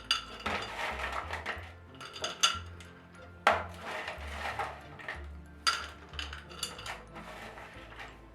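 Hard caramel candies clinking against a glass jar as they are set in one by one: a handful of separate sharp clinks, one every second or two.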